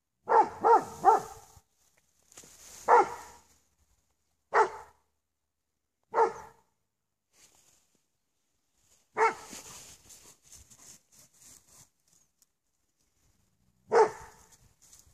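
A Briard barking: three quick barks at the start, then single barks every second and a half to three seconds, eight in all, with a longer gap before the last one near the end.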